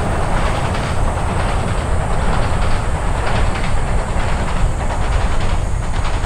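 Container wagons of a freight train rolling across a steel truss bridge: a steady, loud rumble with rapid clacking of wheels over the rail joints.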